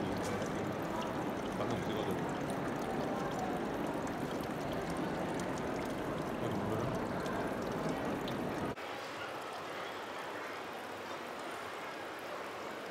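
Steady background hiss and murmur. About nine seconds in it drops abruptly in level and loses its low end at an edit.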